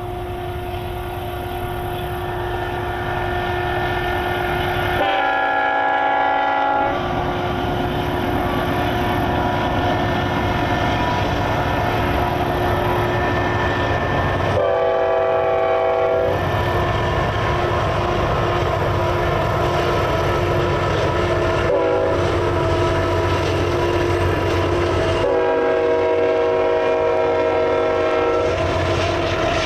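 Diesel locomotive air horn sounding four blasts (long, long, short, long), the grade-crossing signal, over the steady rumble of a passing freight train. The train noise swells over the first few seconds.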